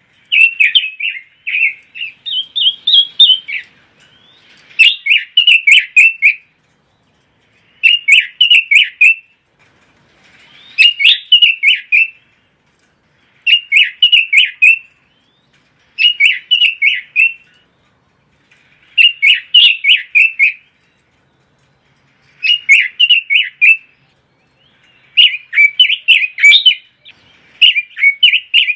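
A Pekin robin (red-billed leiothrix) sings loud, rapid warbling phrases of about a second and a half each. About eleven phrases are repeated every two to three seconds with brief pauses between them.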